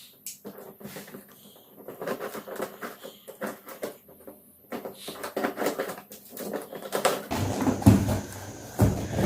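Product packaging being handled and opened: scattered clicks, rustles and light knocks, which get louder and busier from about seven seconds in.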